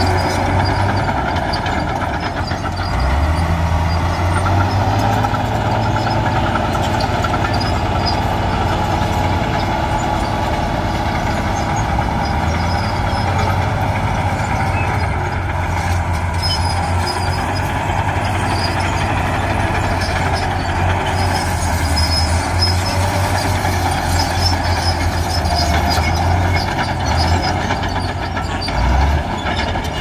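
Diesel engines of heavy earthmoving machinery running steadily, a deep rumble that swells and eases several times.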